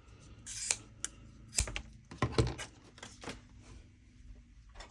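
Irregular light clicks and taps of small craft pieces and hardware being handled on a work surface, with a short rustle near the start.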